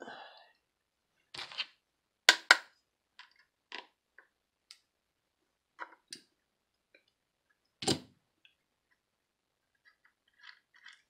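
Scattered clicks and knocks of a screwdriver and a plastic walkie-talkie case being handled while a deeply recessed screw is worked out. There are two sharp clicks close together about two seconds in and a louder knock near the eight-second mark, with lighter ticks in between.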